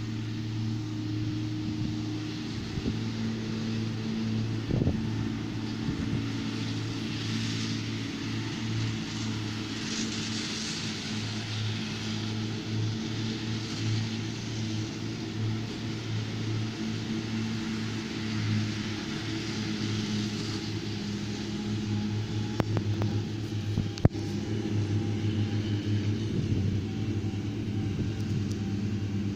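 Tractor engine running steadily at working speed during haylage making, with the hiss of the field machinery over it. A single sharp click or knock comes near the end.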